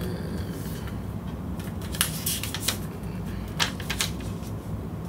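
Packaging being handled during an unboxing: a few sharp crinkles and clicks, in two clusters about two seconds in and again near four seconds, over a steady low rumble.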